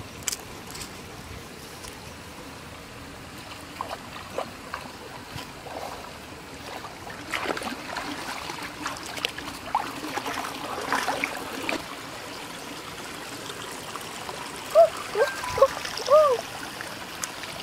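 Shallow stream trickling steadily, with splashes and sloshing from bare feet wading through the water in the middle stretch. Near the end, a few short rising-and-falling chirps stand out as the loudest sounds.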